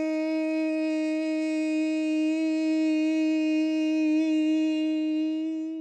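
A woman singing one long, steady note on a single syllable, held at one pitch and swelling slightly, then fading and stopping near the end as her breath runs out. It is a diaphragm-strengthening vocal warm-up, sung louder while bending forward until out of air.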